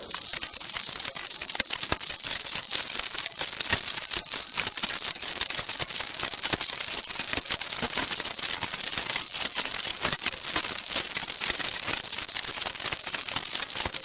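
Cluster of shaman's ritual bells shaken rapidly and without pause, a loud, continuous high jingle that stops abruptly near the end. This is the shaman calling on the spirits for an answer to the question just asked.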